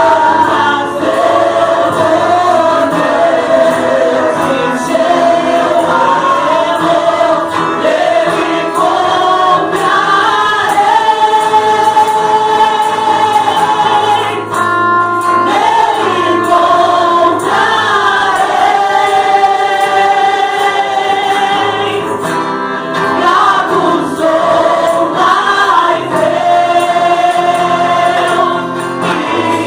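Church worship group singing a gospel song in chorus, many voices holding long notes over musical accompaniment.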